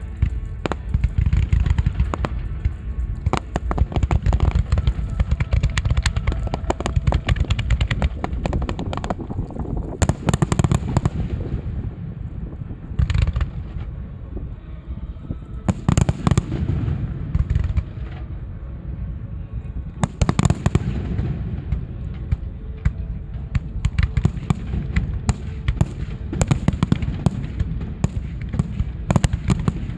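Fireworks display: a dense, continuous barrage of bangs and deep booms, with the loudest sharp crackling bursts about ten, sixteen and twenty seconds in.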